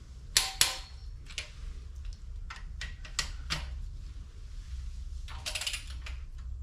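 Torque wrench and socket on cylinder head bolts being tightened to 40 pound-feet: scattered sharp metallic clicks, with a quick run of clicks near the end.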